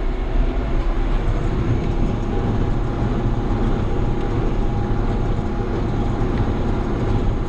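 John Deere 7200 tractor running steadily at PTO speed, driving a New Holland 570 small square baler through the hay.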